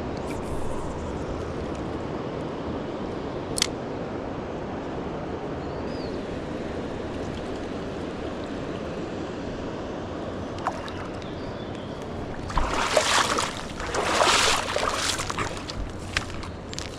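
Fast-running, flood-high river rushing steadily. About twelve seconds in, several seconds of loud splashing and sloshing water break in.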